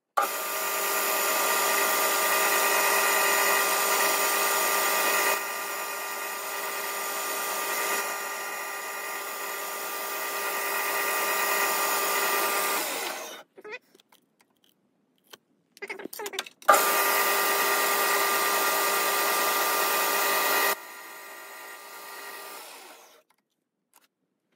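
Boxford BUD lathe running while turning a brass bar down in diameter: a steady mechanical whine made of many fixed tones. It runs for about thirteen seconds, stops with a few brief clicks and knocks, then starts again for about six seconds, dropping in level partway through each run.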